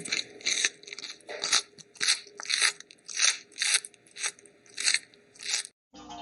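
An animal chewing something crunchy: about a dozen short, sharp crunches at roughly two a second.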